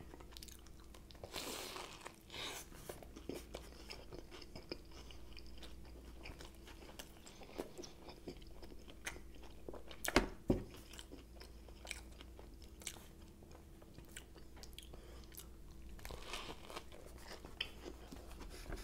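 A person biting and chewing a chicken bacon club sub close to the microphone: soft crunches and wet mouth clicks, with a louder bite about ten seconds in.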